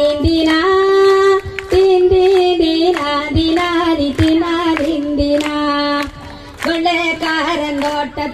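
An elderly woman singing a folk song solo into a microphone, long held notes with slides between them, over a sharp beat about once a second.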